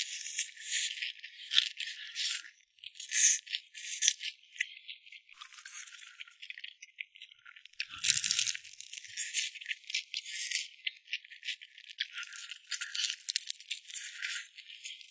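Close-up crunching and crackling of crispy fried food being chewed, a dense run of sharp crisp crackles that comes in bursts, with only the high, crackly part of the sound present.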